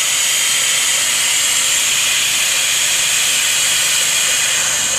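Steady, even hiss of rushing air with a faint low hum underneath.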